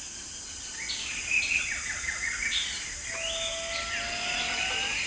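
Forest birds chirping. About three seconds in, an indri gives one long call that rises slightly in pitch and lasts nearly two seconds. A steady high hiss runs underneath.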